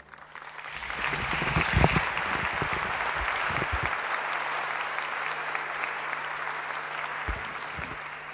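Audience applauding. The clapping builds over the first two seconds, then slowly dies away.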